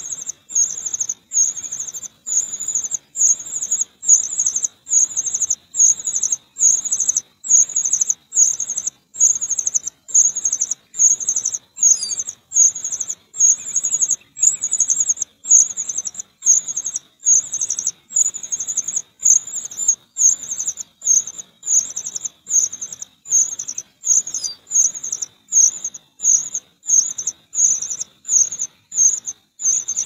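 Common cuckoo chick begging: short, high trills repeated without pause about one and a half times a second.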